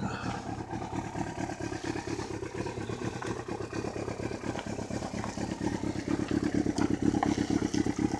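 Kawasaki sport bike engine idling steadily, a fast even exhaust pulse that grows a little louder in the second half.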